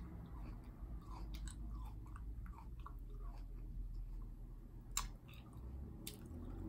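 A person chewing grapes close to the microphone: soft wet mouth sounds and small clicks, with one sharper click about five seconds in.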